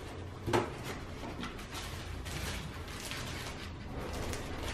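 A stapled bag of dog treats being opened by hand: scattered crinkles and small clicks of the packaging, with one sharper click about half a second in.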